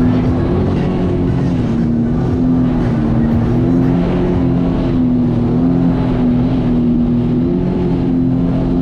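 Personal watercraft (jet ski) engine running at a steady cruising speed, its pitch wavering slightly, over a steady rush of wind and water.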